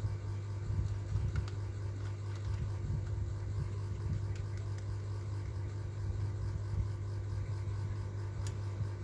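A steady low hum, with a few faint clicks about one and a half seconds in and near the end.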